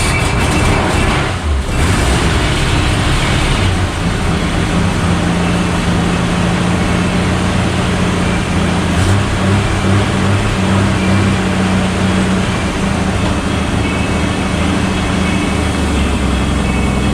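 A car engine just started and running loudly; after a few seconds its sound settles into a steady low drone.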